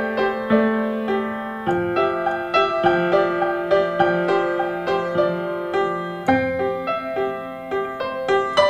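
Solo piano playing evenly repeating broken chords as the instrumental introduction to a song. The chords change about two seconds in and again about six seconds in.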